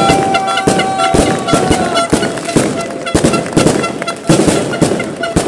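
Firecrackers going off in rapid, irregular bangs over music, with a long held tone in the first two seconds or so.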